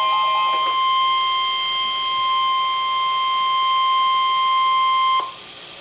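Emergency Alert System attention tone: a single steady electronic tone, held at an even pitch, that cuts off sharply about five seconds in, leaving faint hiss.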